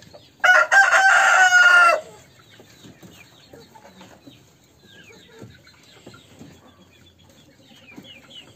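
Rooster crowing once, loud and about a second and a half long, starting about half a second in; faint short chirps follow.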